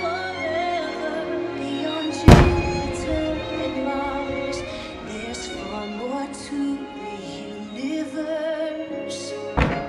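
Music with a singing voice plays throughout. About two seconds in, an aerial firework shell bursts with a single loud boom that echoes away, and another bang comes near the end.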